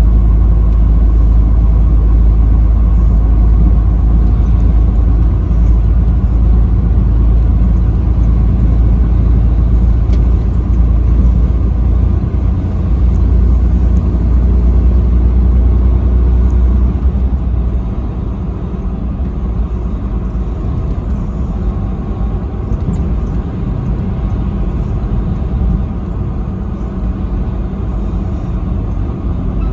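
Steady low rumble of a vehicle driving at highway speed, engine and road noise together, easing off noticeably about eighteen seconds in.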